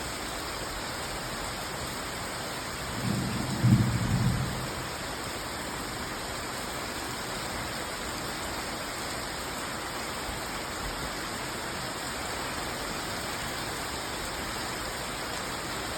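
Steady rain falling hard, with a brief low rumble of thunder about three seconds in.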